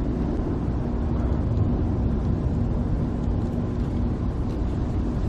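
Steady low vehicle rumble with a faint constant hum.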